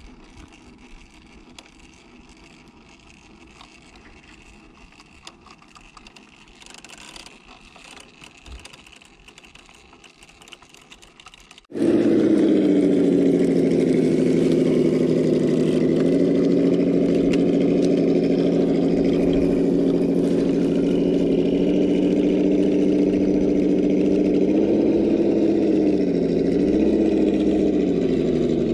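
Traxxas TRX-4 Defender RC crawler's electric motor and gearbox whining at steady crawling speed. The whine starts suddenly about twelve seconds in, after a faint stretch. Near the end its pitch dips and rises again as the throttle changes.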